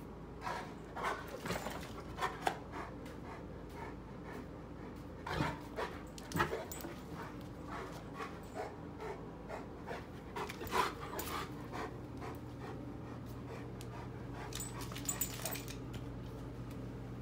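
A large dog panting, with irregular short knocks and scuffs as it moves about; the loudest come about five and a half, six and a half and eleven seconds in.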